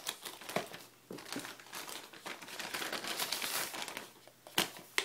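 Packaging crinkling and rustling as a parcel is opened and its contents are handled, with a couple of sharp snaps near the end.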